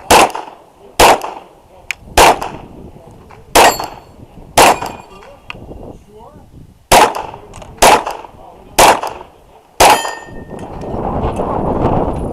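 Glock 34 9mm pistol firing nine shots in uneven strings, pairs and single shots, some followed by a faint metallic ringing. A rushing noise builds near the end after the last shot.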